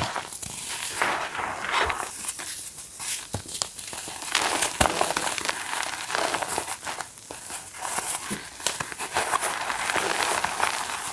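Reformed gym chalk being crushed by hand: dense, crisp crunching and crackling made of many small irregular snaps.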